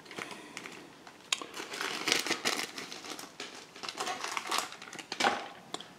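Plastic packet of silicone fly-tying legs crinkling and rustling as it is handled and opened, in irregular crackles that are sharpest about two seconds in and again about five seconds in.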